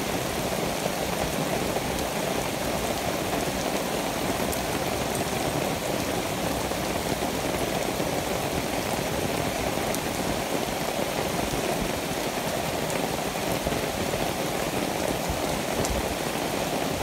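Steady rain falling on grass, leaves and wet ground, heard from under a leafy tree: an even hiss with a few faint drip ticks.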